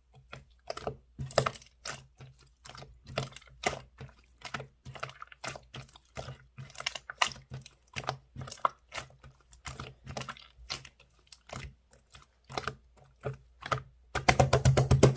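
Slime being pressed and poked by hand, giving a stream of small, irregular clicks and pops. Near the end comes a fast, louder run of clicks.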